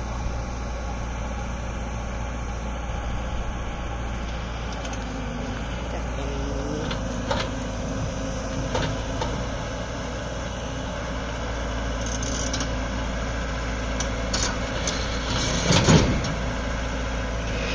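Hyundai 140LC-7 crawler excavator's diesel engine running steadily as the machine climbs onto a lowbed trailer, its steel tracks and the ramp giving scattered clanks. The heaviest clunks come near the end as the tracks come up onto the trailer deck.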